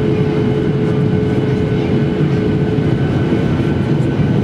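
Cabin noise of a Boeing 737-800 in flight on approach: the steady drone of its CFM56-7B engines and the rush of air past the fuselage. A steady hum within it steps slightly higher in pitch about three and a half seconds in.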